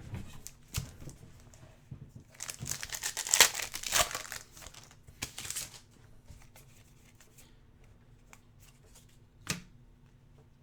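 Crinkling and tearing of a plastic trading-card pack wrapper being opened, loudest between about two and six seconds in, with a few light clicks of card handling; it goes mostly quiet after that apart from one click near the end.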